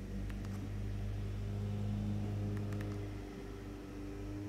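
Steady low background hum, with a few faint clicks about a third of a second in and again around two and a half seconds in.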